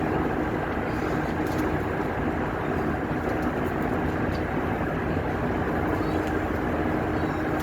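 Steady low mechanical rumble with a faint constant hum, even throughout.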